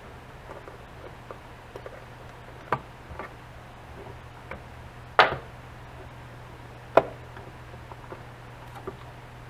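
Sharp clicks and light taps of hand tools against a hard drive's lid as it is worked loose, three louder knocks among scattered small ticks.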